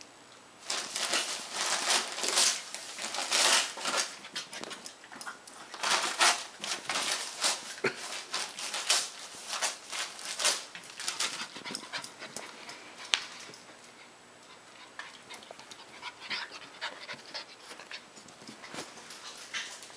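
Border Collie puppy panting in irregular bursts of breathy noise while it plays; it goes quieter and sparser about two-thirds of the way through.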